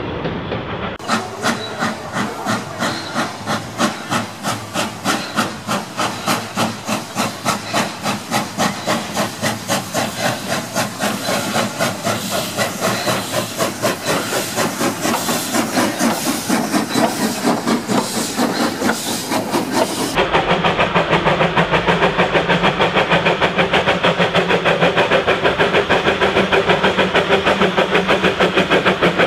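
Steam locomotives chuffing. First a steady beat of exhaust chuffs, about two a second and quickening a little, from a passing NSW C32-class 4-6-0 (number 3237). About two-thirds of the way through it cuts to a narrow-gauge tank engine: louder, faster chuffs over a strong hiss of steam.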